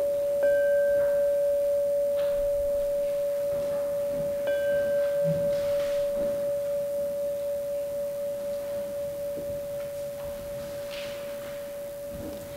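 Hanging metal bell struck with a padded mallet, ringing with one long steady tone that slowly fades. It is struck again about half a second in and once more about four and a half seconds in.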